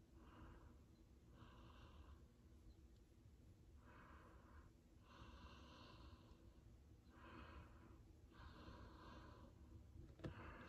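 Near silence with faint, slow breathing close to the microphone, about three breaths in and out, and a small tap near the end.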